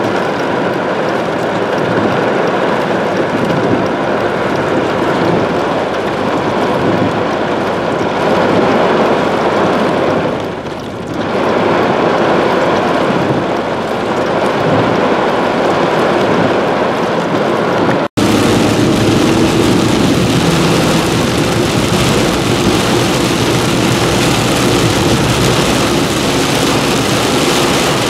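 Heavy rain pouring down, heard from inside a car. About 18 seconds in it cuts to rain on the windshield of the car driving along a wet road, with the engine and tyres running beneath.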